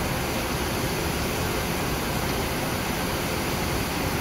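Steady, even background hiss with no distinct events; pulling the metal matrix band off the model tooth makes no audible sound of its own.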